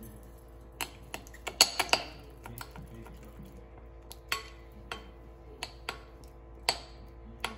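A metal spoon clinking and scraping against a glass mixing bowl while stirring honey and chilli flakes, in irregular taps, with a quick cluster of clinks about two seconds in.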